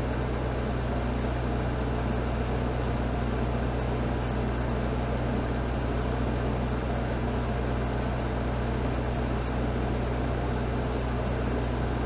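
Steady low hum with an even hiss, unchanging throughout: background noise of the recording setup.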